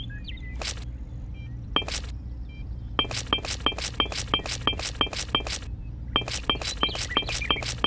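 Miniature clay bricks set down one after another, each giving a sharp clink with a brief ring. Two single clinks come first, then a fast run of about four a second that pauses briefly near the end.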